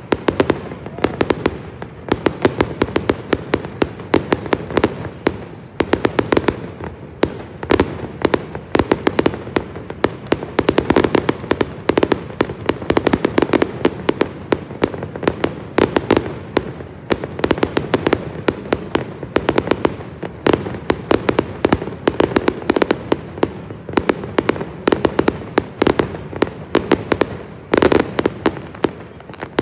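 Fireworks display: aerial shells bursting one after another in a dense, unbroken barrage of sharp bangs and crackles, several a second.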